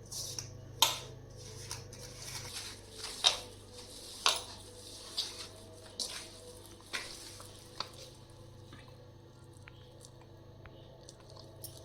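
Fish-fry masala being mixed in a bowl: an irregular series of sharp knocks and clinks from the utensil striking the bowl, roughly one a second, with soft stirring in between.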